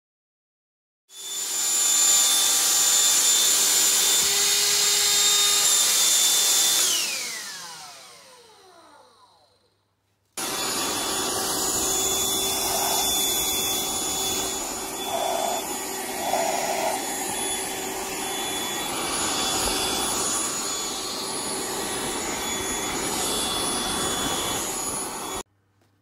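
Black+Decker 16.2Wh lithium Dustbuster handheld vacuum switched on, running with a steady high whine, then switched off, its motor whining down over a few seconds. After a break, it runs steadily again while it vacuums.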